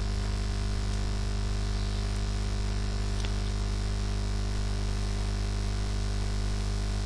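Steady electrical mains hum with a low buzz and hiss, picked up by the recording setup.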